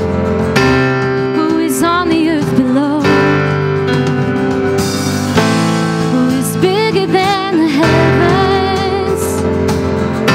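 Worship song: a singer holding long notes with vibrato over guitar and sustained chords that change every two to three seconds.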